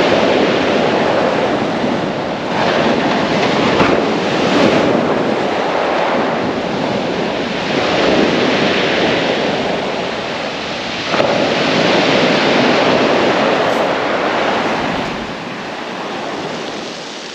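Surf breaking on a shingle beach, the wash swelling and easing every few seconds.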